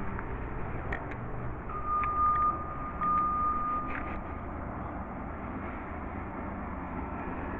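Distant roadside mowing machinery working on the road above, a steady low rumble. A steady high beep sounds twice, each lasting nearly a second, about two and three seconds in.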